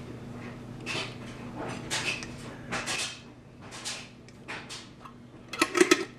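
Kitchen handling sounds: short rustling noises about once a second, then a brief clatter of a utensil or dish near the end, over a low steady hum.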